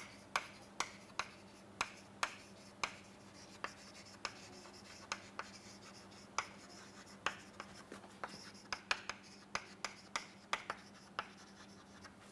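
Chalk writing on a blackboard: a string of sharp, irregular taps and short scratches as a line of words is written, the taps coming closer together toward the end.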